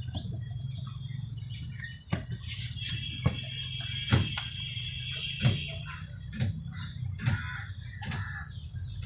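Birds chirping over a steady low hum, with a few sharp clicks scattered through.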